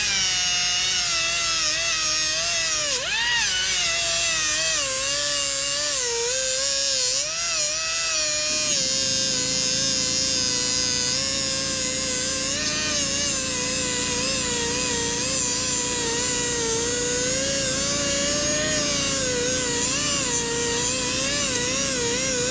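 Pneumatic 1/4-inch die grinder with a flap wheel grinding an aluminum block: a high whine whose pitch drops and wavers as the wheel is pressed into the metal. About eight seconds in, the Fortress 5-gallon air compressor's pump kicks on under the whine, adding a steady low drone as the tank pressure falls to its cut-in point.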